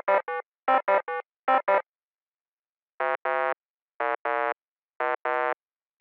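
Simple synthesizer or electric-piano jingle: quick groups of three short notes repeat and stop about two seconds in, then after a short pause a different tune of paired notes, a short one and a longer one, repeats about once a second.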